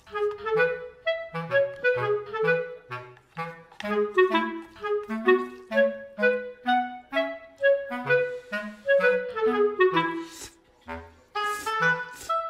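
Background music: an instrumental tune of quick pitched notes over a bass line.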